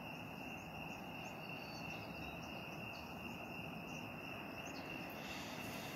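Crickets chirping in a steady, unbroken high-pitched trill, over a low, even background noise.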